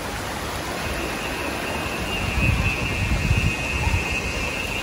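Floodwater sloshing and splashing around a vehicle wading slowly through a flooded street, with wind buffeting the microphone. A steady high-pitched whine comes in about a second in.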